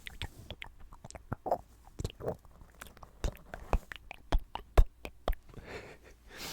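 Close-miked ASMR mouth sounds: irregular wet clicks and smacks, a few each second.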